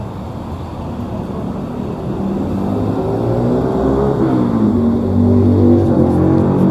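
A motor vehicle's engine or drive getting louder, its pitch rising, dipping and rising again as it speeds up, over a steady low rumble.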